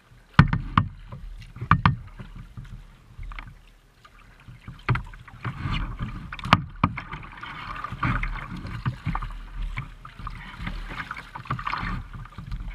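Kayak paddling: a dozen irregular knocks and splashes of the paddle over the first seven seconds. Water rushes along the hull from about five seconds in.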